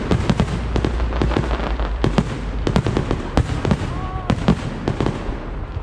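Fireworks going off in a rapid, irregular barrage of sharp bangs and crackles, several a second, over a continuous rumble.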